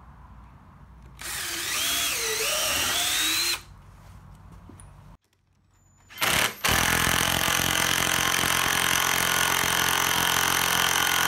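Cordless drill boring through steel angle iron into a wooden beam, its pitch wavering under load. After a short break, a cordless impact wrench hammers a bolt down through the steel into the wood in a steady rapid rattle.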